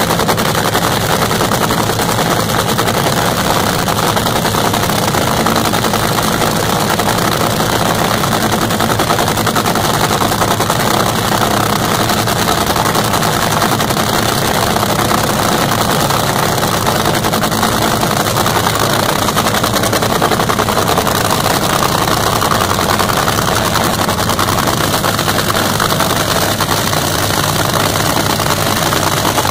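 Top Fuel dragster's supercharged nitromethane V8 idling before its run: a loud, steady, rapid crackling rattle that does not change.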